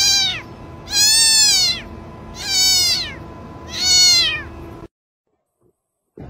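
A domestic cat meowing four times, roughly every second and a half, each meow rising and then falling in pitch; the sound cuts off suddenly about five seconds in.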